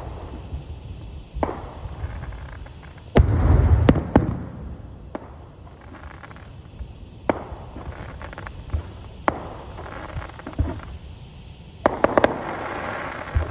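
Fireworks display: single sharp bangs every second or two as shells launch and burst, the loudest about three seconds in with a low rumble after it. Near the end comes a rush of rapid crackling.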